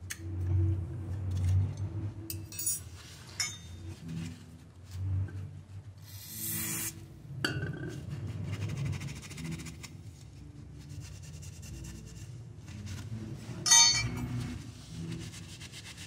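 Small metal parts of an accelerator pedal bracket and shaft clinking and scraping as they are handled and taken apart, with a paper towel rubbing over the metal. A loud rustle comes about six seconds in, and a sharp metallic clink near the end is the loudest sound.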